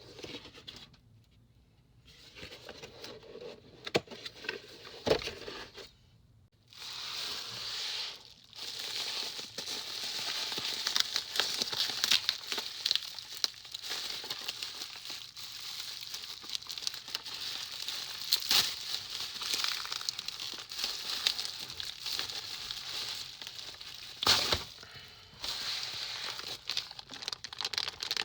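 Packaging crinkling and rustling as keyboard kit parts are unpacked and handled, with scattered sharp clicks and knocks. There are short pauses about a second in and again around six seconds in.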